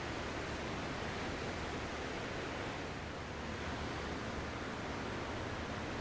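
Ocean surf washing steadily as a continuous hiss, easing slightly about halfway through.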